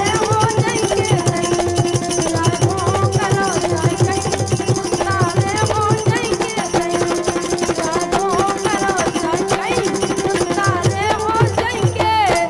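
Bundeli rai folk music: a wavering melody line over fast hand-drum strokes and rattling percussion.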